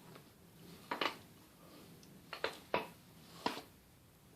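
A handful of short, sharp pops in two groups: joints cracking during a neck or back adjustment.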